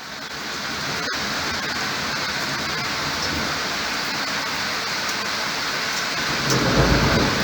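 Thunderstorm: heavy rain falling steadily, fading in over the first second, with a low rumble of thunder swelling near the end.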